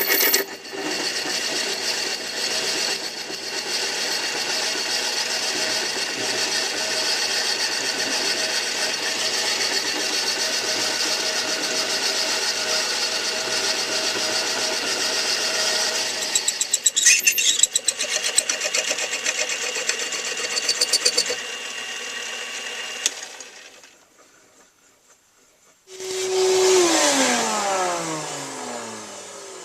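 Electric machine motor running steadily while a drill bit cuts into a metal workpiece, with brief rattling chatter twice. It stops a little before the last quarter, then starts again briefly near the end and winds down, its pitch falling.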